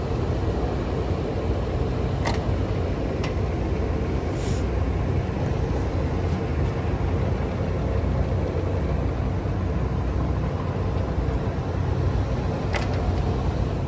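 1978 Monarch 613 engine lathe running, a steady mechanical hum and rumble with a faint steady tone, broken by a few sharp clicks, the loudest about two seconds in and near the end.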